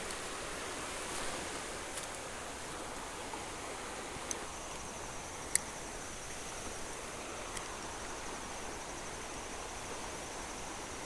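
Swollen river running high and fast, a steady rush of flowing water. A few sharp clicks stand out, the loudest about five and a half seconds in, and a faint high steady whine comes in just before halfway.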